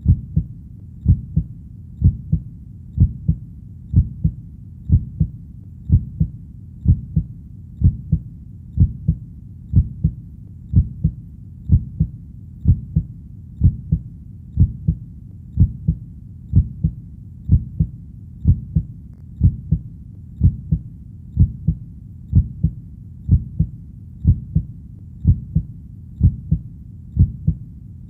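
Heartbeat, slow and steady at about one beat a second. Each beat is a double thump, lub-dub, with the first thump the stronger.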